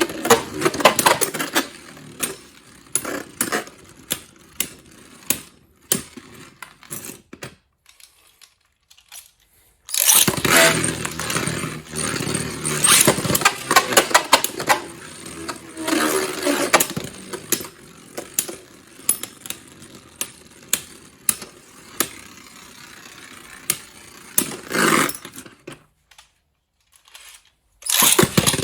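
Beyblade Burst spinning tops whirring and clattering against each other in a stadium, with many sharp clicks as they collide. One battle winds down and goes quiet; about ten seconds in a new pair starts suddenly and loudly, clashes until it dies away, and near the end another pair starts just as suddenly.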